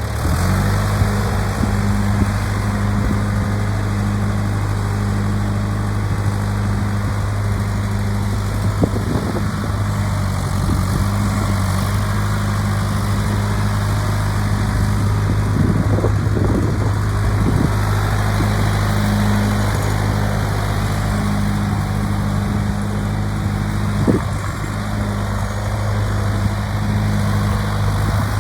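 John Deere 310-A backhoe's engine running steadily at idle, with a few brief knocks now and then.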